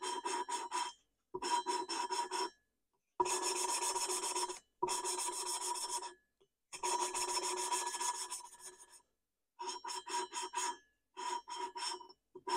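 Exhaust valve of an Aeronca C3's air-cooled cylinder being lapped into its seat with carborundum grinding paste. A lapping stick is spun back and forth between the palms, giving a gritty rasping made of rapid strokes. The rasping comes in repeated bursts of one to two seconds with short pauses between them.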